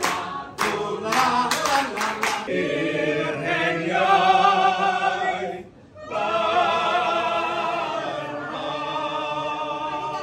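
A Welsh choir singing unaccompanied in harmony, holding long chords, with a short break a little before halfway. Sharp hand claps come in the first couple of seconds.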